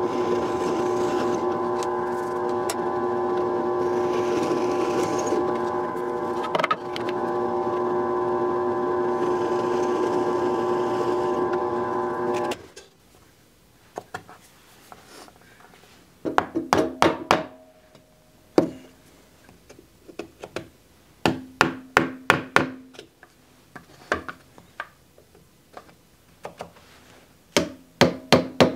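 Drill press motor running with a steady whine, its bit cutting into a wooden jig three times with a hiss, then the motor stops about twelve seconds in. After that come several clusters of quick wooden taps and knocks.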